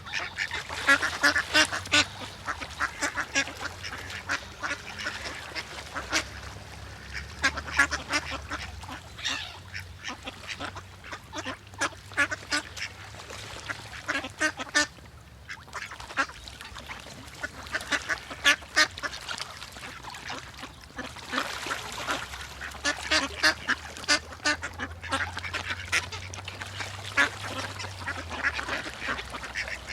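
Several ducks quacking, with runs of rapid, overlapping quacks and short lulls between them.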